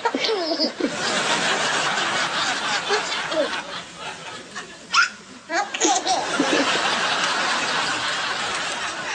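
A baby laughing in breathy bursts, while another baby gives a sharp hiccup about five seconds in.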